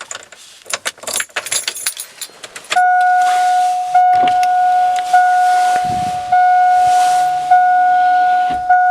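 Truck keys jangling and clicking for the first few seconds. Then, about three seconds in, a 2002 Chevy Avalanche's dashboard warning chime comes on with the key at the ignition: one steady electronic tone repeating in pulses of about a second, with a few light knocks under it.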